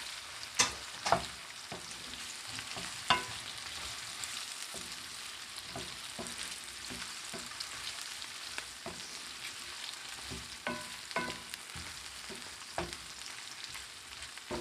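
Fishballs and pieces of fried pork sizzling in oil in a pan, a steady hiss, while a cooking utensil stirs them and knocks against the pan several times, loudest about half a second, a second and three seconds in.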